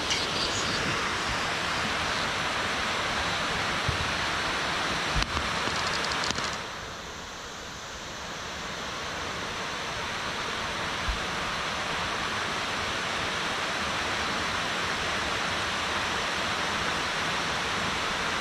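Steady rush of water spilling down the face of a dam spillway, an even hiss that dips for a couple of seconds about seven seconds in. A few faint knocks sound over it.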